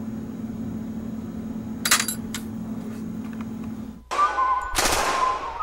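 Brass cartridge cases clinking against each other and a wire dehydrator tray as they are handled, with a sharp clink about two seconds in, over a steady low hum. About four seconds in it cuts to a loud burst with whistling tones and a bang, like a gunshot sound effect.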